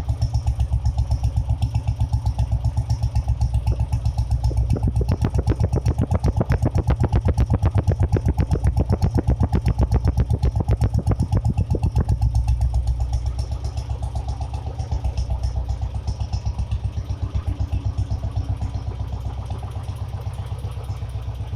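Royal Enfield Bullet 350's single-cylinder engine running through a short bottle silencer, its exhaust thumping in even beats. The beats quicken and grow louder about four seconds in, then slow and quieten back toward idle about twelve seconds in.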